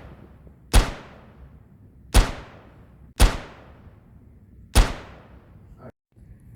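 Four gunshots fired one at a time at uneven intervals of one to one and a half seconds, each a sharp bang with a short fading tail.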